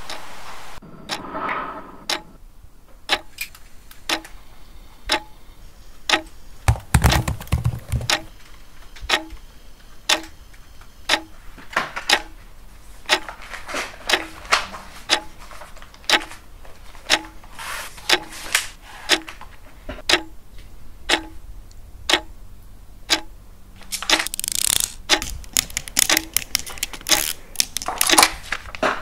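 A clock ticking steadily, about one tick a second. Around seven seconds in there is a low thump, and near the end paper rustles as worksheet pages are flipped.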